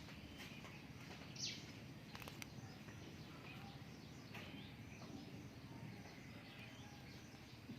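Faint, brief high chirps, bird-like, over a low steady background noise. The loudest is a quick falling chirp about a second and a half in.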